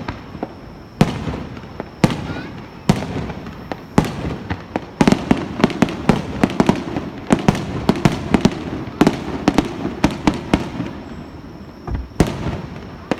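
Aerial fireworks bursting: single loud bangs about a second apart, then from about five seconds in a rapid barrage of many overlapping bangs and crackles, thinning out to scattered bangs near the end.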